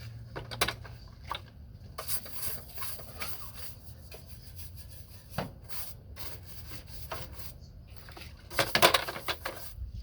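Hand scrubbing of a lawn mower: irregular rubbing and scraping strokes, with a louder flurry of scrubbing about nine seconds in.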